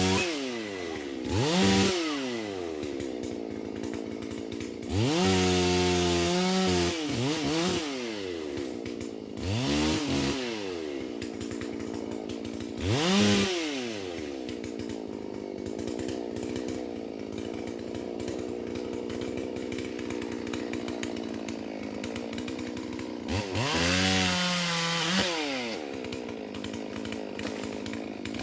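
Holzfforma G444 two-stroke chainsaw, a Stihl MS440 clone, revved up and down several times in quick blips. It settles to a steady idle in the middle, then is revved and held high again near the end.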